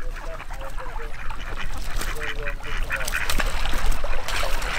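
A group of ducks quacking on the water in short, scattered calls.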